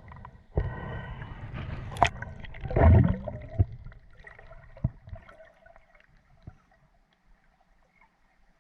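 Water sloshing and gurgling with a few sharp knocks, loudest about three seconds in, then dying away to a faint steady background.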